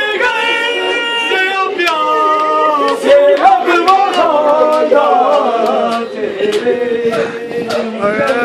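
A male voice chanting a noha, a Muharram mourning lament, in long held, wavering notes, with sharp hand slaps of matam chest-beating in time, about two a second.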